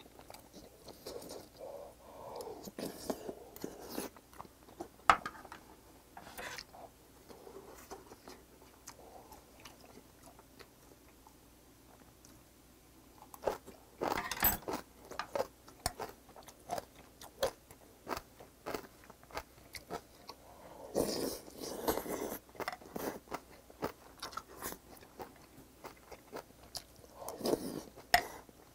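Close-up eating sounds of hot pheasant-and-rice porridge taken by the spoonful: slurping and chewing in several separate bursts, with smaller wet clicks between. A single sharp click about five seconds in is the loudest moment.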